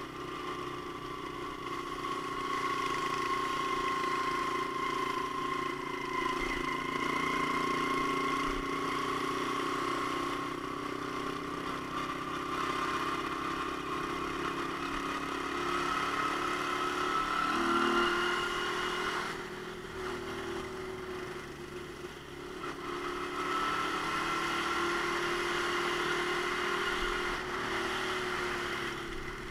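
A Romet Ogar Caffe 125's single-cylinder engine running under way, its note climbing slowly as the bike gathers speed. About two-thirds of the way through the note drops and quietens for a few seconds, then climbs again.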